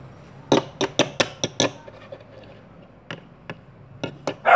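Hard plastic toy figure tapping on a tabletop: a quick run of about six sharp taps, then four more spaced out.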